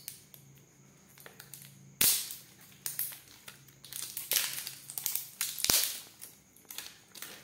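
Thin plastic shrink-wrap seal crinkling and crackling as it is peeled and torn off a plastic bottle cap by hand, with several sharp snaps of the plastic, the loudest about two seconds in.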